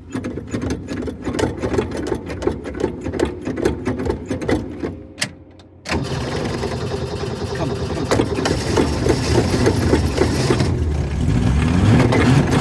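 An engine cranking over with rapid regular strokes for about five seconds in a hard start, dying away briefly, then catching about six seconds in and running, getting louder, with the engine speed starting to rise and fall near the end.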